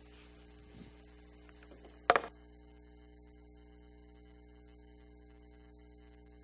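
A steady hum of several held low tones, with a single loud knock at the lectern about two seconds in as things are gathered up there.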